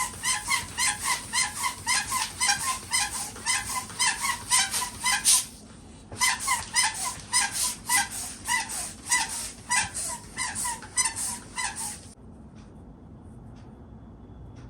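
Rubber balloon squeaking in quick, evenly repeated high chirps, about four or five a second, in two runs with a short pause between them, stopping a little before the end.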